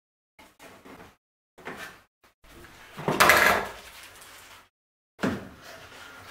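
Handling noises of woodwork: short knocks and scrapes as a wooden cleat is held against the plywood deck edge and spring clamps are picked up and fitted. The loudest is a noisy scrape lasting under a second, about three seconds in.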